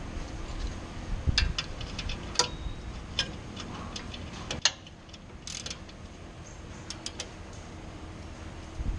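Irregular sharp clicks and light metallic taps from hand tools at work on a car's front suspension, over a steady low rumble.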